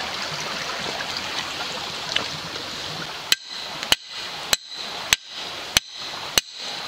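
Creek water running steadily. About three seconds in come six sharp metal-on-metal strikes, about 0.6 s apart, each with a short ring, as the back of a hatchet drives a steel trap stake into the ground.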